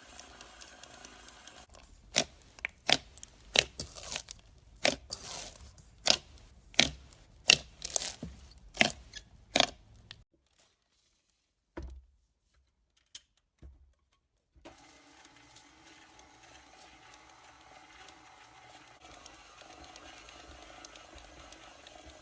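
Slime being beaten and worked, giving a run of sharp sticky pops and crackles about twice a second for several seconds, then a pause with a few single pops, then faint steady handling noise.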